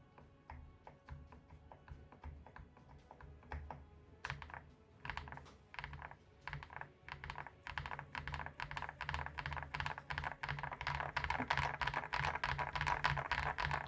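Typing on a mechanical keyboard fitted with Gateron Lunar Probe linear switches: scattered keystrokes at first, then a fast, continuous run of key presses from about four seconds in.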